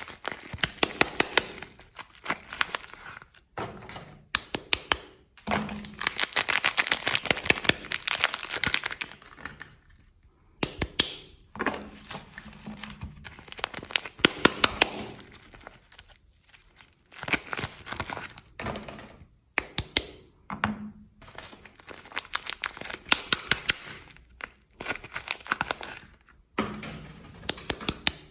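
Soap packaging being handled and unwrapped: wrappers crinkling and tearing in bursts a few seconds long, full of sharp clicks and cracks, with short pauses between.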